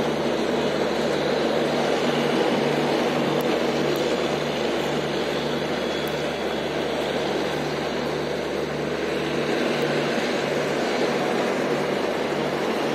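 Steady rumble and hiss of a train running slowly along the track, with a low hum that pulses in an even beat.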